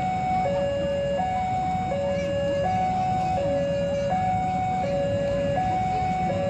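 Railway level crossing warning alarm sounding as a train approaches: an electronic two-tone signal alternating steadily between a higher and a lower pitch, each tone held under a second. A low rumble from the train runs underneath.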